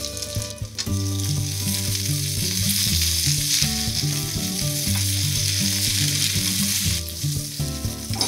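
Sliced onions and bell peppers sizzling in hot oil in a stainless steel skillet with browning potatoes, a steady frying hiss just after the vegetables go in. Soft background music plays underneath.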